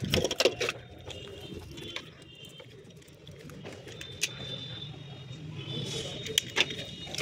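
Hands handling plastic wiring-harness connectors and corrugated loom: scattered plastic clicks and rustling, loudest in the first half-second, with a few more clicks later. Faint high chirping comes and goes in the background.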